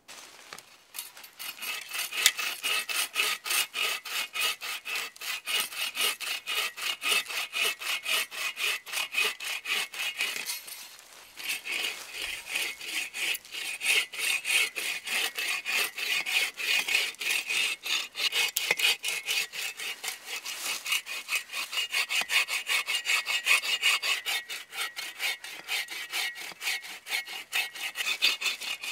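Hand saw cutting across a fallen log, with steady back-and-forth raspy strokes. The sawing breaks off briefly about ten seconds in, then resumes.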